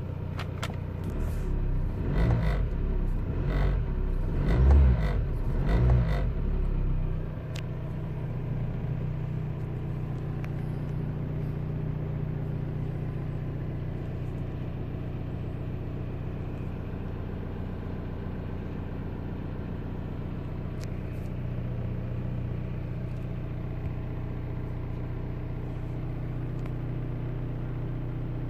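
A 1998 VW New Beetle's 1.9-litre 90 hp diesel four-cylinder idling just after starting, heard from inside the cabin. It runs unevenly with louder low thumps and a few clicks for the first several seconds, then settles into a steady idle hum.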